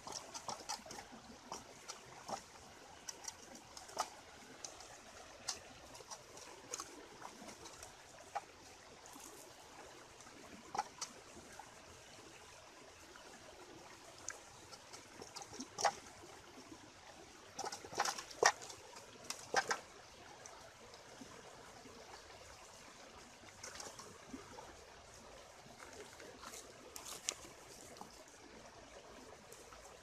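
Faint steady trickle of water, with scattered sharp clicks and knocks from hands handling a duck in a metal pot, the loudest cluster a little past the middle.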